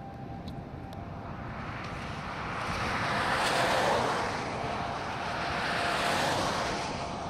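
A vehicle passing close by on the road: tyre and engine noise swells to a peak about four seconds in, swells again near six seconds, then eases off.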